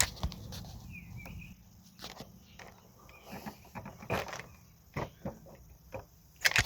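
Scattered light knocks and shuffling at irregular intervals, with a short bird chirp about a second in.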